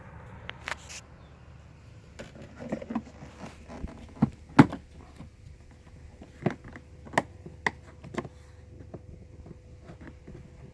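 Screwdriver prying at the plastic clips of a car's cabin-air intake screen: scattered sharp clicks and knocks of plastic, the loudest about halfway through, over a faint steady hum.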